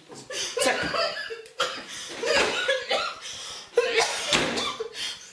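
Voices of a man and a woman scuffling: uneven bursts of strained cries and laugh-like sounds.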